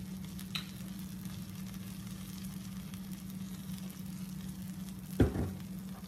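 Grilled cheese sandwich sizzling in a nonstick frying pan: a steady frying hiss over a low hum, with one sharp knock about five seconds in.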